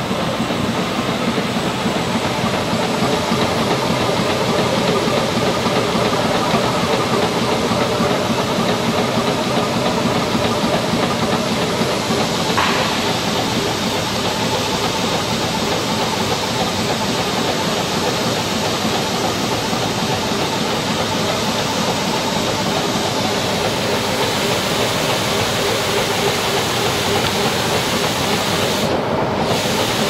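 Trailed orchard air-blast sprayer with a 75 cm fan running: a loud, steady rushing hiss of fan air and spray mist over a low mechanical hum, with one short click about twelve seconds in.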